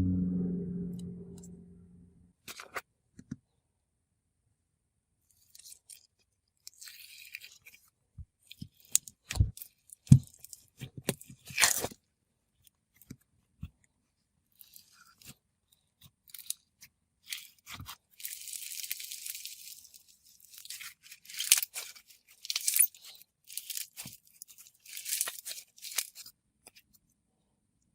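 Crispy snowfizz jelly slime being pressed and squished by hand, making scattered crunching, crackling and popping clicks, with denser crackly stretches in the second half. A low tone fades out over the first two seconds.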